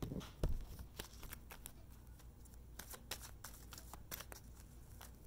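Oracle card deck being shuffled and handled: faint, irregular flicks and rustles of the cards, a little louder in the first second.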